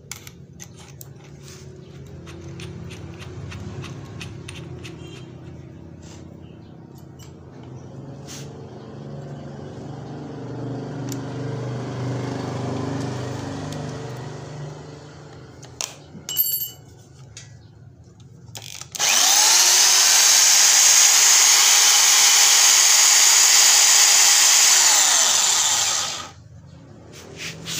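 Budget electric hammer drill switched on, its motor whining up to speed with a rising pitch, running steadily and loudly for about seven seconds, then switched off and winding down. Before it starts there are only faint clicks and handling sounds.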